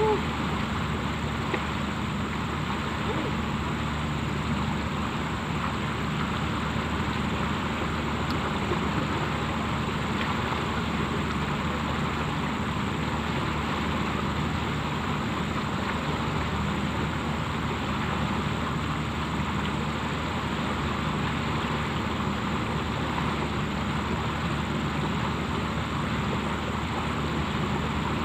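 Steady rush of flowing floodwater, with a low steady hum underneath.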